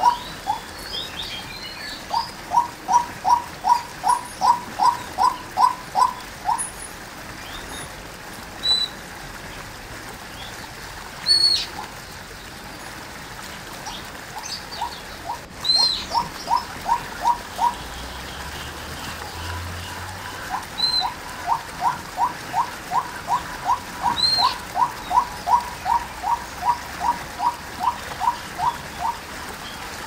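Female white-breasted waterhen calling: runs of short, evenly repeated notes, about two to three a second, in three bouts. A few brief high chirps fall between the bouts.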